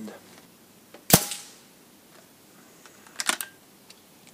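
One shot from a Weihrauch HW100 pre-charged pneumatic air rifle about a second in: a single sharp crack that dies away quickly. About two seconds later comes a quick run of fainter mechanical clicks.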